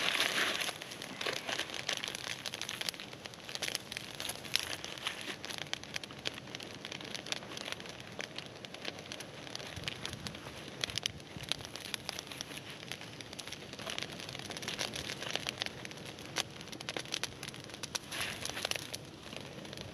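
Wood campfire crackling with a steady stream of small pops, broken by a few louder bursts of crinkling or rustling.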